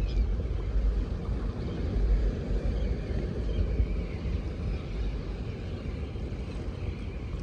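Wind buffeting the microphone, a steady low rumble that rises and falls.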